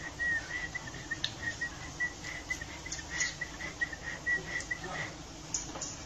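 A bird calling in a rapid run of short, high chirps at one pitch, about four or five a second, stopping about five seconds in.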